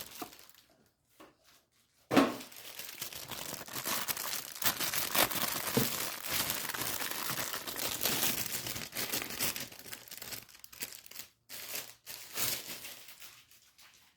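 Plastic wrapping crinkling and tearing as a new engine air filter is unwrapped: a sharp rip about two seconds in, then continuous crackling for several seconds that tapers into a few short rustles near the end.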